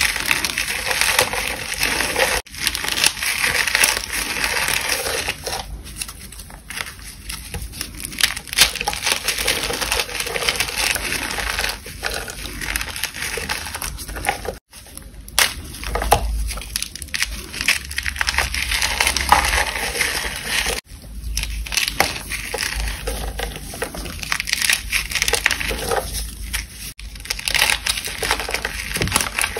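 Wet reformed gym chalk being crushed and crumbled by hand in a dish of water: dense, continuous crunching and crackling, cut by a few sudden brief breaks.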